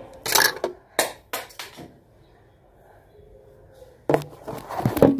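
Handling noise from the recording phone: a quick series of knocks and scrapes in the first two seconds, then louder bumps and fingers rubbing close to the microphone about four seconds in.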